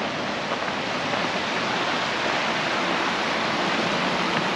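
Creek water rushing steadily over rocks.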